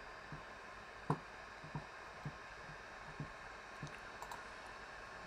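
A few soft, scattered clicks and knocks, one louder about a second in, over a steady faint hiss of a quiet small room.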